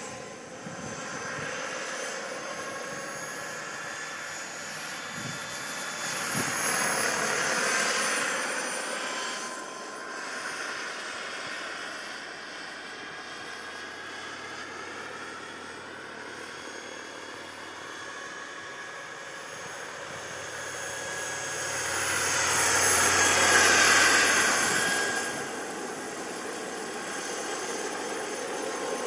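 Radio-controlled scale Lama helicopter in flight: a steady whine of its motor and rotor that swells twice, a little after five seconds in and again, loudest, around twenty-four seconds in.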